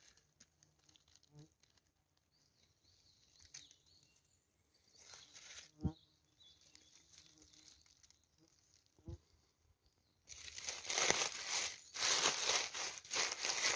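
Dry fallen leaves rustling and crackling as a hand works through the leaf litter while a mushroom is lifted from the soil: a few light rustles and knocks at first, then about ten seconds in, a few seconds of dense crackling.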